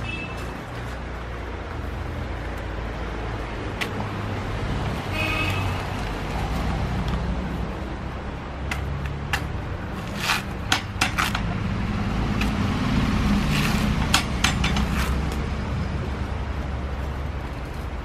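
Green coconut being husked on a standing lever dehusker: a run of sharp cracks and snaps as the fibrous husk is levered apart and torn off the nut, most of them about halfway through. A steady low rumble sits under it.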